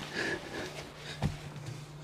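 Faint scraping and rustling of PVC conduit being pulled back through the wall cavity, with one sharp knock about a second and a quarter in, over a steady low hum.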